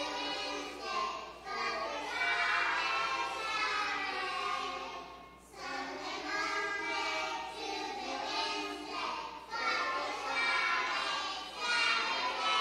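A group of young children singing a song together, in phrases with brief breaks between them.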